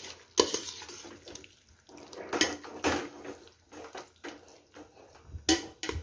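Steel spoon scraping and clinking against the side and bottom of a stainless-steel pot as wet chicken curry is stirred, in irregular strokes with a few sharper knocks.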